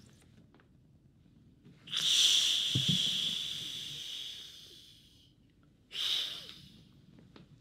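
A person hissing hard through bared teeth, writhing in agony: one long hiss about two seconds in with a brief voiced growl in it, fading over about three seconds, then a second short, sharp hiss about six seconds in.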